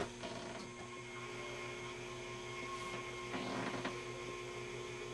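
Steady electrical hum from the Admiral 16R11 tube television, with a light click at the very start as the video signal is switched.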